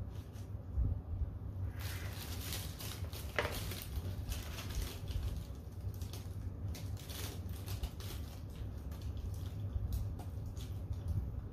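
Tissue paper rustling and crinkling in irregular bursts as it is handled, from about two seconds in, over a steady low hum.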